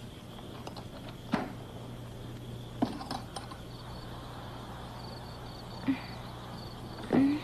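Night-time ambience: a steady low hum with crickets chirping faintly, broken by a few short knocks and bumps, the loudest just before the end.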